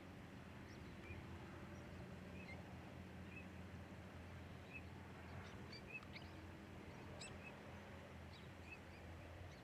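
Faint, scattered short calls of birds, many brief high chirps at irregular intervals, over a low steady hum.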